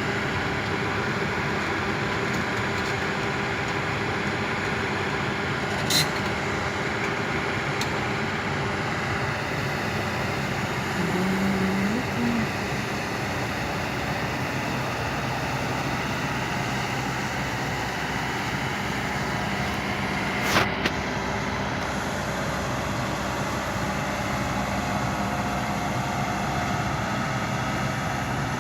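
Heavy diesel engine running steadily, with two sharp knocks, about six and about twenty-one seconds in, and a brief low tone a little before halfway.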